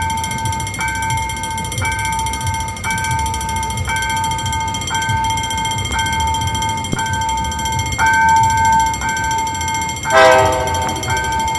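Diesel train departing, its low rumble under a two-tone electronic warning beep that repeats about once a second. A short, loud horn blast sounds about ten seconds in.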